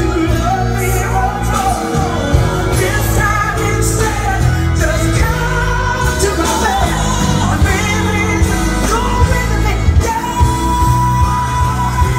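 Loud music with a singer's voice over a heavy bass line, ending on a long held sung note.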